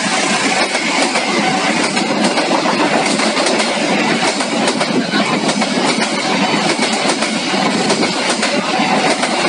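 Passenger train coaches passing at speed: a steady loud rush of steel wheels on the rails, with repeated clickety-clack clicks as the wheels cross the rail joints.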